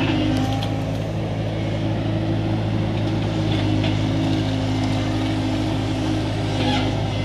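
Tata Hitachi crawler excavator's diesel engine running at a steady pitch as the machine digs mud with its bucket.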